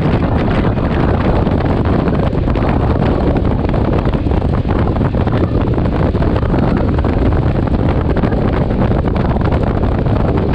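Loud, steady wind rush buffeting the microphone of a moving motorcycle, with the motorcycle's running noise mixed in underneath.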